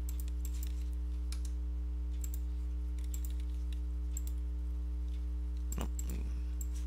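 Computer keyboard keys clicking irregularly, a dozen or so light taps, over a steady low hum.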